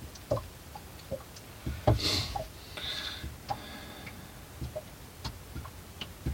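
Irregular light ticks and taps at uneven spacing, with a short hiss about two seconds in.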